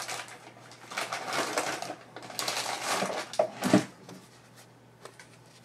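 Rustling and clicking of paper and craft supplies being handled, busiest in the first four seconds and then dying down to a few faint clicks.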